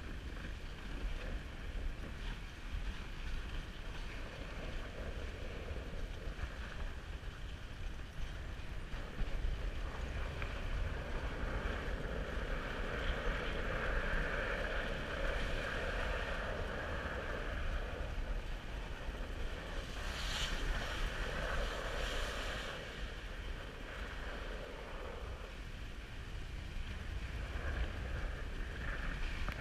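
Dog sled runners sliding over snow as a dog team pulls the sled, with wind rumbling on the microphone. The sliding noise grows louder for a while in the middle.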